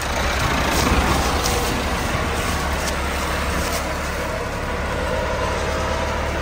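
Tractor diesel engine running steadily, a loud low drone that swells about a second in, with a few faint clicks or rattles over it.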